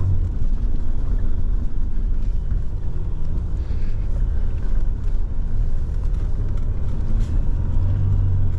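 Jeep Wrangler ploughing through deep powder, heard from inside the cab: a steady engine and tyre rumble mixed with the noise of snow pushing against the front and over the windshield. The engine is held back by traction control cutting in on the wheelspin. The low engine hum is strongest at the start and again near the end.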